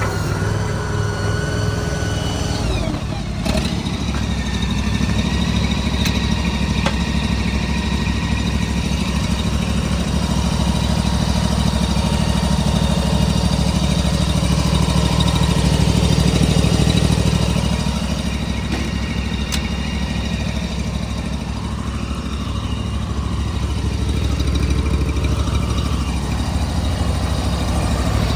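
Honda GX690 V-twin gas engine of a Stag TL322 mini track loader running steadily, with a shift in pitch about three seconds in and the level rising and falling as the machine works.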